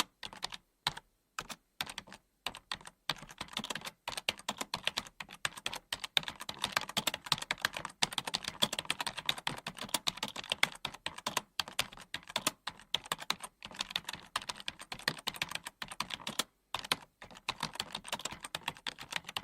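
Typing on a computer keyboard: rapid, irregular key clicks with a few short pauses. The typing is sparser for the first few seconds.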